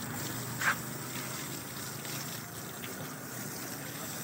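Water spraying in a steady hiss, as when an electric bike is being washed down. A brief high chirp stands out about a second in.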